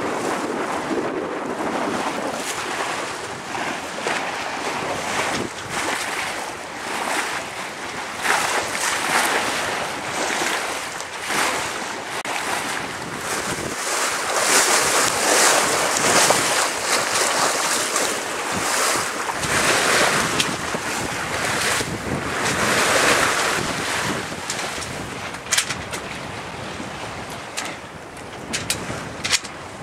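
Sea water rushing and churning along a sailing yacht's hull, with wind buffeting the microphone. The rush swells and eases in surges.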